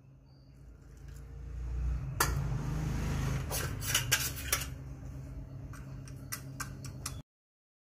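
Water poured from a steel bowl onto dry kibble in a ceramic bowl, then a steel spoon clinking and scraping against the bowl as it stirs the soaking kibble, with many sharp clinks. The sound cuts off suddenly near the end.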